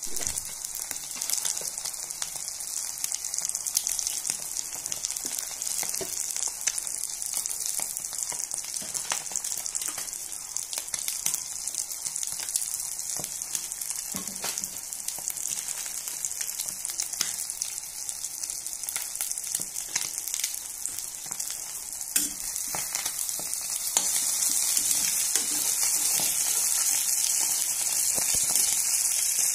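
Eggs frying in hot oil in a wok for an omelette: a steady sizzle with scattered crackles, growing louder about 24 seconds in.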